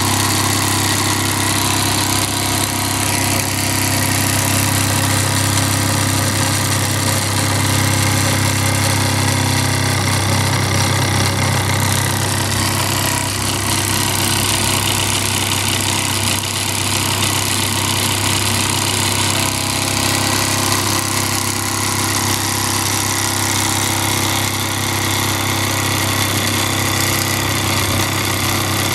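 Jensen 85 toy steam engine running fast and steadily on live steam from its esbit-fired boiler, with a steady low hum.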